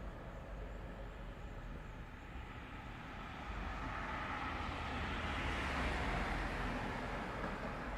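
A car passing by: its noise builds from about three seconds in, is loudest around six seconds, then fades away, over a steady low traffic rumble.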